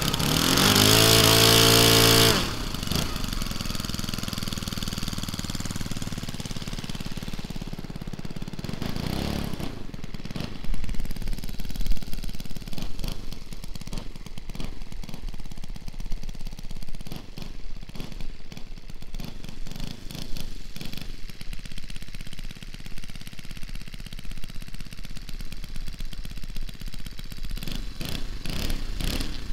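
Giant-scale P-51 Mustang RC model's GAUI F50 engine with its 21x10 propeller, run up on the ground. The pitch rises briefly at the start and falls back, then it idles with a steady, fast pulsing beat, with a short louder stretch about ten seconds in.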